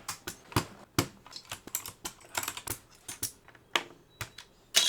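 Plastic keycaps being pulled off a Geeky GK61 mechanical keyboard one after another, making irregular sharp clicks and clacks, a few each second.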